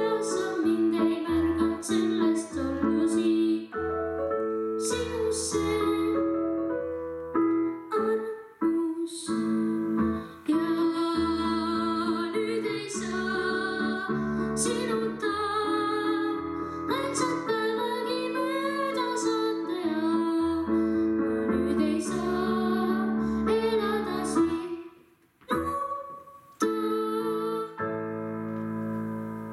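A boy singing a slow song into a microphone with piano accompaniment, his high unbroken voice holding long notes with vibrato. The song ends near the close.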